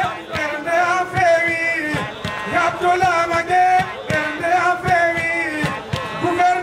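A man singing a Fulfulde song into a microphone, amplified through a sound system, in a chanting style with long held notes. Drum beats sound underneath.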